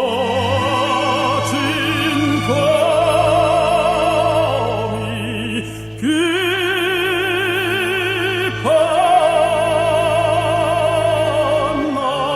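Operatic singing with heavy vibrato over an orchestral accompaniment, long held notes in phrases that each swoop up into their first note.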